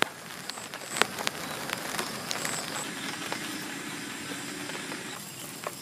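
Steady hiss with scattered sharp clicks and crackles, and a faint low hum coming in about three seconds in.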